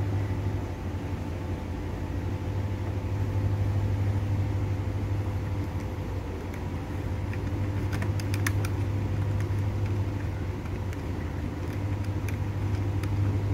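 Steady electric hum of the miniature boiler model's small motors running, the forced-draught blower and gear pump, at an even level. Light metallic clicks come about eight seconds in and again near the end as a small latch on the boiler's front door is worked.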